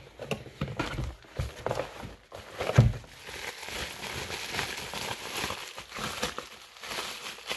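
Packaging rustling and crinkling as boxes are handled, with a dull thump about three seconds in.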